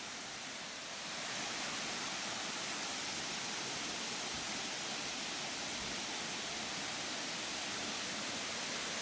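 Steady rush of a small waterfall, a little louder from about a second in.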